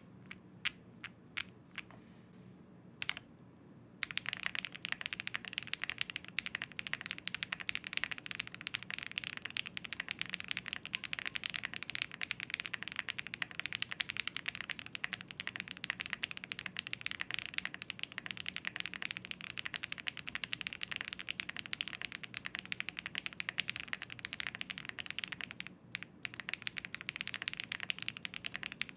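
Typing sound test on a Meletrix Zoom65 V3 mechanical keyboard: a few single keystrokes, then, about four seconds in, continuous fast typing that pauses briefly near the end.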